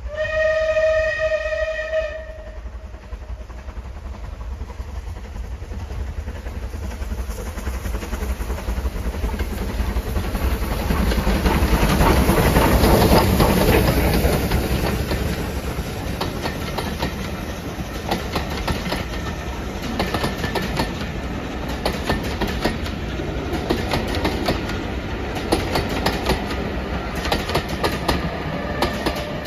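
Steam locomotive 34027 Taw Valley, a rebuilt Bulleid West Country class Pacific, sounds its whistle for about two seconds, then runs past hauling its train. The noise builds to its loudest as the engine passes, about halfway through, and is followed by the rhythmic clickety-clack of the carriages' wheels on the rails.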